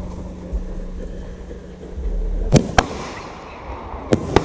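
Consumer fireworks going off: four sharp bangs in two close pairs, the first pair about two and a half seconds in and the second near the end.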